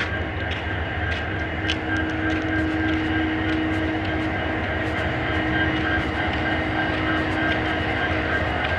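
A vehicle's engine running steadily while driving, with road noise: a constant low rumble and a steady hum.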